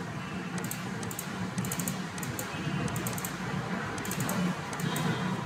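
Computer keyboard and mouse clicking in small clusters of quick clicks, over a steady low background hum.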